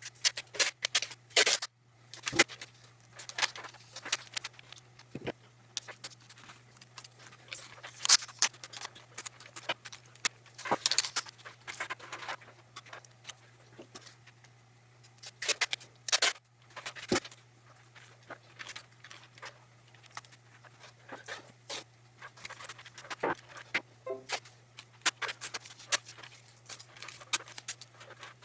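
Irregular clicks, taps and scrapes of a plastic membrane keyboard being handled and worked on, its case parts knocking and rattling, over a steady low hum.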